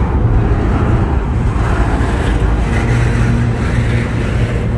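Double-stack intermodal container train rolling past at close range: a steady, loud low rumble of steel wheels on the rails, with no horn or distinct clanks.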